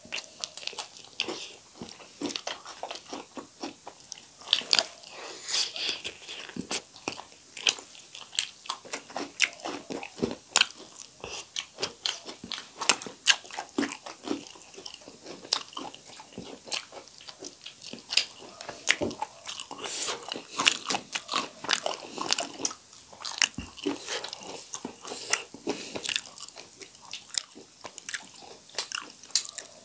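Close-miked eating: two people biting and chewing fried chicken and raw cucumber slices, with frequent wet crunches and smacks at an uneven pace.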